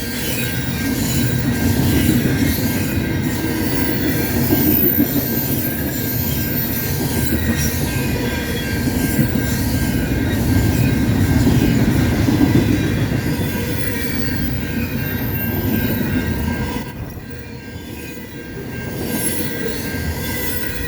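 Intermodal freight train rolling past: a steady rumble of steel wheels on rail, with faint high wheel squeal over it. The rumble eases briefly near the end.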